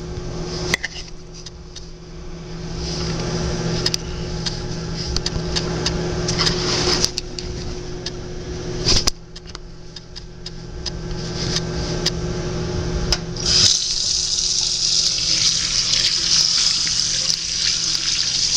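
Sink tap running while hands are washed under it, with water splashing and small knocks. The flow gets louder and hissier about two-thirds of the way through. A steady low hum sits underneath.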